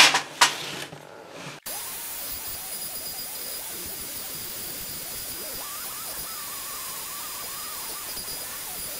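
Dremel rotary tool running at high speed through its flexible-shaft handpiece, a small burr carving eye ridges into soft pine: a steady high whine over a hiss. It starts abruptly about one and a half seconds in, after a few light knocks.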